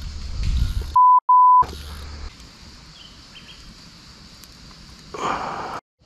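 Censor bleep: a steady, pure high beep about half a second long, broken once in the middle, with all other sound muted while it plays. Low outdoor background noise around it, and a short, louder noise near the end.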